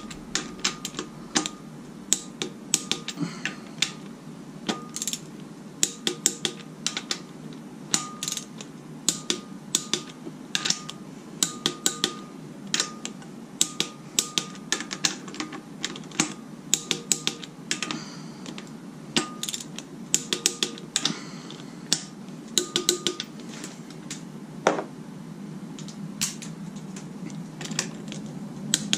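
Click-type torque wrench clicking over and over at irregular intervals, many clicks with a short metallic ring, as motor mount bolts are checked at its 40 ft-lb setting.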